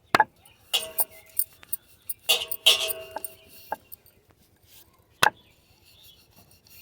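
Rolling pin working dough on a rolling board: sharp knocks and short bouts of scraping and clattering, with one hard knock just after the start and another a little after five seconds in.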